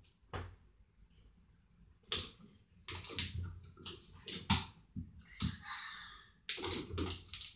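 Clothing rustling, with scattered soft knocks and clicks, as someone pulls on a garment and works their hands through it. There is a longer swishing rustle about five and a half seconds in.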